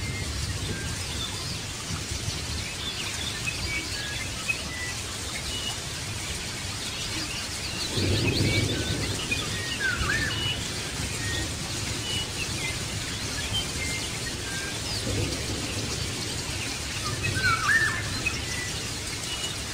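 Birds chirping, many short calls scattered throughout, over a steady low background noise, with louder stretches about eight seconds in and near the end.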